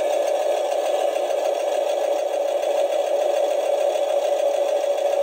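Animated skeleton sewing machine Halloween prop running, making a steady, even mechanical sewing-machine whir.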